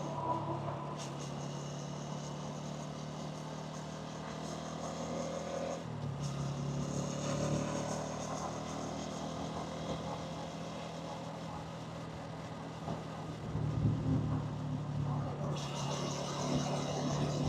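Hansom Bike Venett 125cc motorcycle's engine running at low speed amid city traffic, with a steady low note; it changes note about six seconds in and grows louder around thirteen seconds in.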